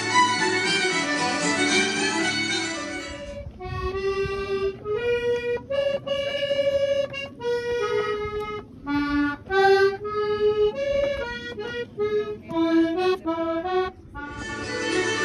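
Instrumental background music, which about three seconds in gives way to a red Paolo Soprani button accordion playing a tune live, one clear note after another, over a low background rumble. Near the end the background music comes back.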